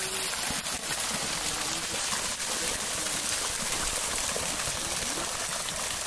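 Small waterfall: water spilling over a mossy rock face, a steady, even rush.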